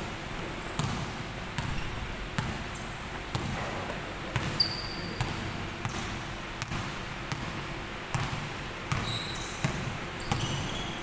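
Basketball being dribbled on a hardwood gym floor, steady bounces about once every 0.8 seconds. Short high squeaks of sneakers on the floor come in a few times, around the middle and near the end.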